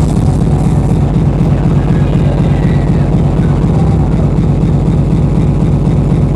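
Speedcore DJ set played loud over a club sound system: a very fast kick-drum beat so rapid it runs together into a dense, steady low pulse.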